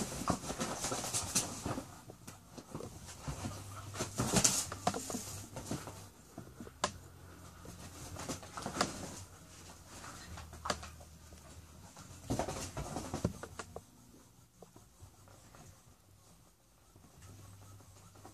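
A dog and a rooster scuffling: paws and claws scrabbling on a leather couch, with sharp knocks in irregular bursts, the loudest about four seconds in. It dies down after about fourteen seconds.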